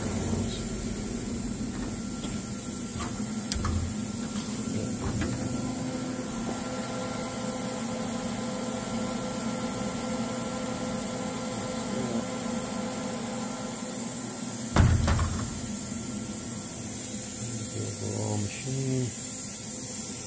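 Steady electrical hum from the powered-up CNC router's control cabinet, with a few light knocks and one loud thump about 15 seconds in.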